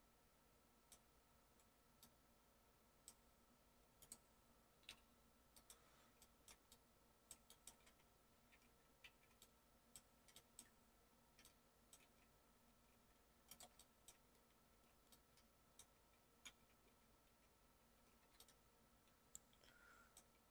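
Near silence broken by faint, irregular clicks of a computer mouse and keyboard, sometimes several in a quick run, over a faint steady hum.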